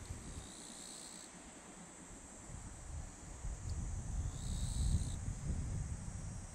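Insects shrilling steadily, with short buzzing bursts every couple of seconds. A low rumble comes in about halfway through and grows louder.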